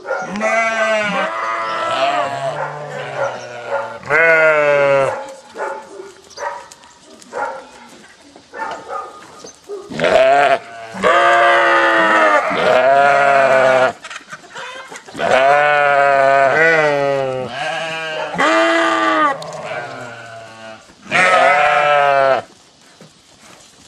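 A flock of sheep bleating: many loud, quavering bleats overlapping at different pitches. They come in waves, with the longest run of calls about ten seconds in.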